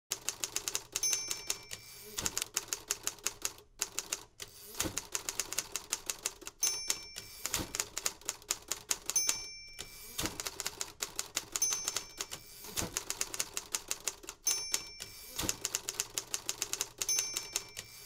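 Manual typewriter being typed on fast: rapid key strikes in runs, each run ending with a short ring and then a carriage-return sweep, about every two and a half seconds.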